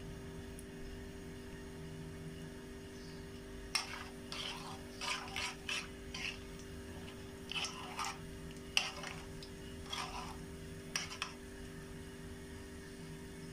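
Metal spoon stirring and scraping in an aluminium frying pan of foaming hot oil. A run of quick scrapes and clinks starts about four seconds in and stops about eleven seconds in, over a steady low hum.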